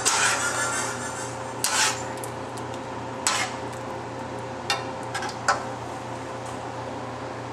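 A metal spatula scraping and knocking against a frying pan while stirring, about half a dozen short strokes, over a steady background hum.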